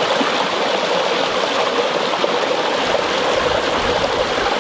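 Small mountain brook running steadily over rocks: an even rush of water that never lets up. A low rumble comes in underneath about three seconds in.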